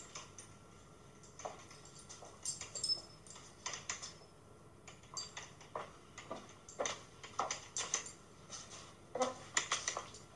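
High-heeled shoes clicking on a hard floor with each step of a walk, one sharp click per step at an uneven pace, with a quicker run of clicks near the end.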